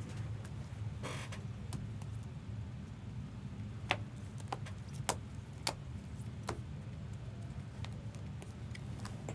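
Trading cards and their packaging being handled: a few sharp clicks and faint rustles over a steady low hum.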